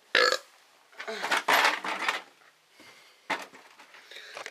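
Handling noise as the camera is picked up and set down in a new spot: a sharp knock, then about a second of scraping and rubbing, and a single click near the end.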